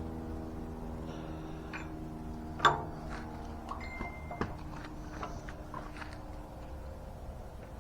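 Metal parts of an off-road floor jack being handled and fitted together: scattered small clicks and knocks, with one sharper clank about two and a half seconds in. A low steady hum runs underneath.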